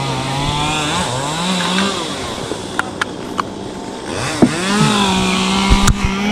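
A small motor running steadily, its pitch climbing a little after about a second, dipping briefly past the middle and settling higher. A few sharp clicks sound over it.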